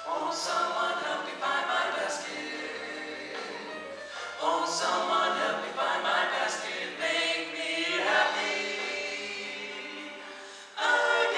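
Male vocal quartet singing in harmony into microphones, in phrases that swell and fade, with a loud new phrase coming in near the end.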